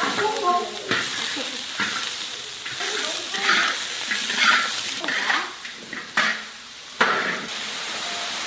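A metal spatula scraping and stirring chunks of meat frying in a large wok, with sizzling and a few sharp clacks against the pan. About seven seconds in, beer is poured into the hot wok and the sound turns into a steady loud hiss of boiling and steam.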